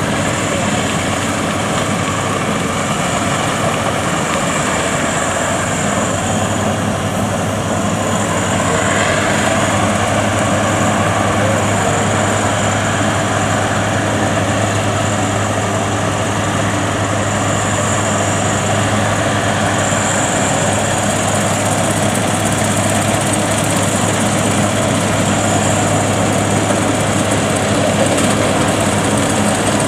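Diesel engine and threshing machinery of a World WD102 Pro rice combine harvester running steadily under load as it works through soft, boggy paddy ground, growing a little louder about nine seconds in.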